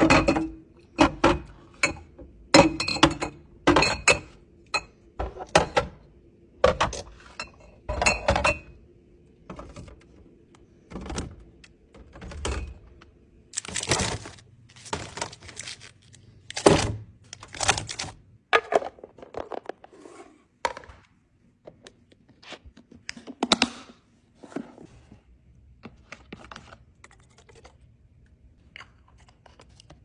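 Bottles and plastic-wrapped packs being set down on plastic fridge shelves and into clear plastic bins, making irregular knocks, clinks and crinkles of packaging. The knocks come thick and fast at first, then thin out and grow quieter after about twenty-four seconds.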